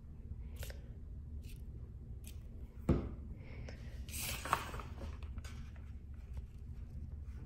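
Hands working with paper on a table: a single knock about three seconds in as the glue bottle is set down, then paper rustling as the glued paper jar cutout is turned over and pressed flat by hand, over a low steady room hum.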